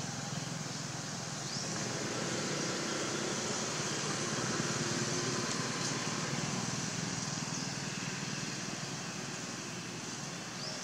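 A vehicle engine humming steadily over outdoor background noise, swelling a little in the middle and then fading as it passes.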